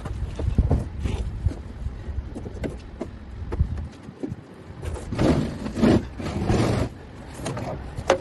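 Irregular knocks and scraping over a low rumble, with a louder run of scraping about five to seven seconds in.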